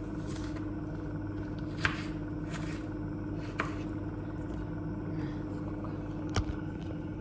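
A steady low hum with a few sharp knocks of kitchen utensils, about two, three and a half, and six seconds in; the last is the loudest.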